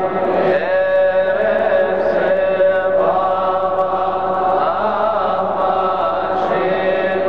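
Male choir of Coptic deacons chanting a Coptic hymn, long held notes with slow turns in pitch.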